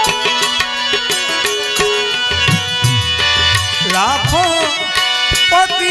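Indian folk wedding-song music (lagna geet) with hand-drum strokes under sustained melody. A wavering, sliding melodic line comes in about four seconds in.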